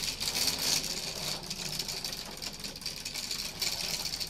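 UGears wooden tram model, rubber-band-powered, running along its wooden rack rail. Its wooden gears and mechanism give a fast, steady clatter.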